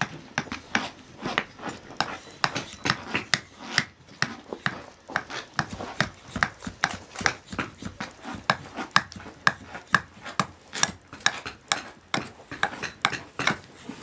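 A small hand axe chopping steadily into a wooden spoon blank resting on a wooden chopping stump, roughing out its shape: a rapid, even run of sharp strikes, about three a second.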